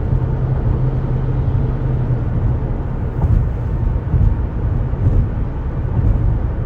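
Steady low road rumble and engine drone inside a moving vehicle travelling at speed.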